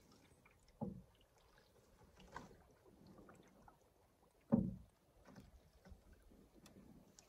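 Canoe paddle strokes in calm water: three separate swishes of the blade pulling through the water, the one about halfway through the loudest, with faint small drips and ticks between.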